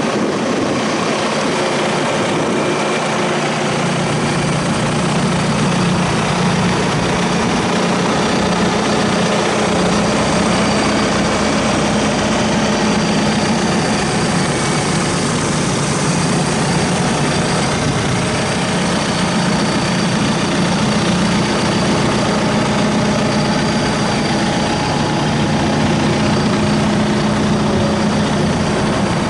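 Diesel engine of a John Deere 5115M tractor idling steadily, heard up close.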